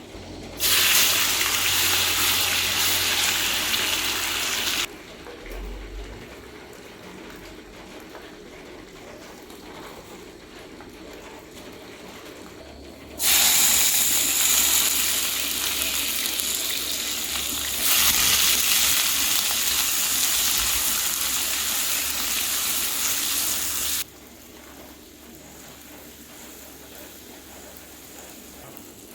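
Loud hissing, rushing noise in three stretches of a few seconds each, each starting and stopping abruptly, over a quieter steady background.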